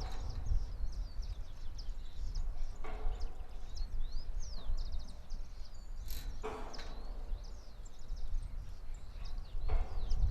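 A farm windmill creaking about every three seconds as it turns, with many small birds chirping and wind rumbling on the microphone.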